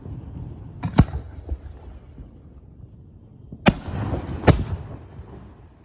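Aerial firework display shells going off: a sharp bang about a second in, then two more close together near four and four and a half seconds, each followed by a rolling echo over a low rumble.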